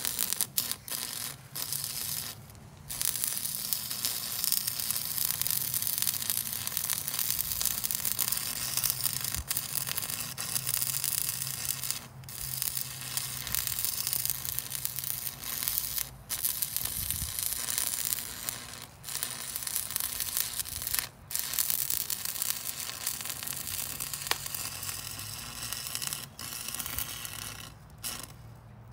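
Arc of a Campbell Hausfeld 115-volt stick welder crackling and sizzling as a 5/64 rod on the high setting lays a bead on steel, with a low hum under it. The crackle breaks off for a moment several times where the arc goes out and is struck again.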